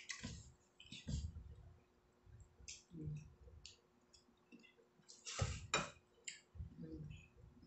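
Eating at a meal table: scattered small clicks of mouths and fingers, soft knocks and clinks of plates, and two louder clatters close together about five and a half seconds in.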